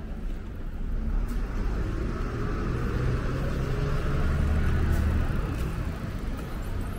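A motor vehicle passing close by on the street: a low engine rumble and tyre noise growing louder to a peak about four to five seconds in, then easing off.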